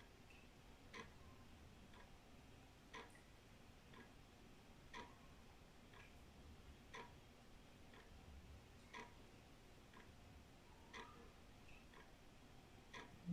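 Old wall clock ticking faintly and evenly, one tick a second, with louder and softer ticks alternating as a tick-tock.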